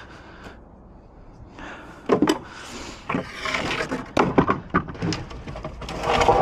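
Broken scrap wood and junk from a demolished chicken coop being handled: irregular wooden knocks, clatter and scraping that start about two seconds in and grow busier toward the end.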